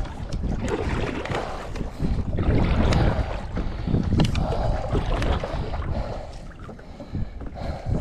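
Kayak paddle strokes splashing in choppy water, the loudness surging with each stroke, while gusty wind buffets the microphone with a low rumble.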